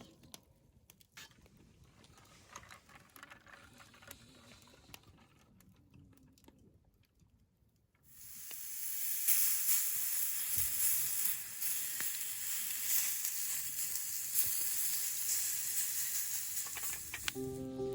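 Faint clicks of handling, then about eight seconds in meat starts sizzling on a hot grill or pan: a steady crackling sizzle that holds to the end.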